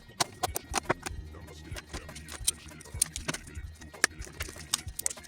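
Irregular sharp clicks and taps of small plastic and metal computer parts being handled during a RAM and fan replacement, over background music.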